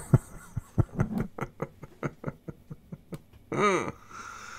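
A run of small, quick clicks, about five a second and unevenly spaced, then a short voice sound whose pitch rises and falls, about three and a half seconds in.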